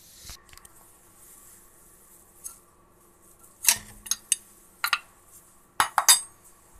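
Small metal parts clinking as they are handled: a few sharp clinks about four seconds in, then a quick run of them near the end.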